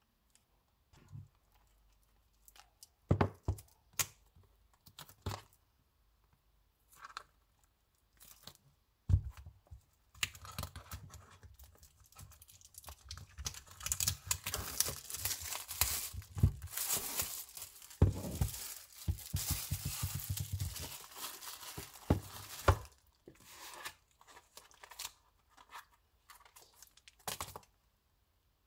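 Packaging being torn open and crinkled by hand: a few scattered knocks and rustles, then about thirteen seconds of continuous crinkling and tearing, then a few more rustles near the end.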